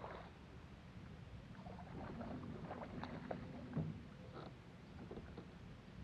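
A hooked largemouth bass splashing at the surface beside the boat, then swung dripping out of the water, with scattered splashes and clicks and one dull thump a little past the middle.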